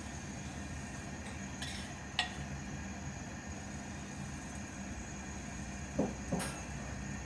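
A metal spoon clinking against a glass batter bowl and frying pan as pancake batter is spooned into the pan: a light clink about two seconds in and two stronger, ringing clinks near the end, over a steady low hum.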